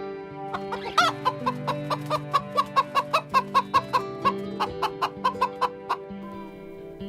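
Chicken clucking: a louder call about a second in, then a quick run of short clucks, about four a second, stopping near the end. Plucked acoustic guitar music plays underneath.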